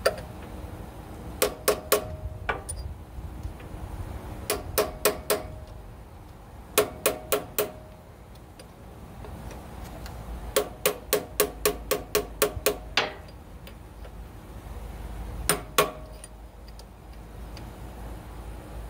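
Hammer striking a punch to drive a transmission main shaft bearing into its case, seating it a little at a time. The metallic taps are sharp and ringing and come in short runs of two to ten, with pauses between the runs.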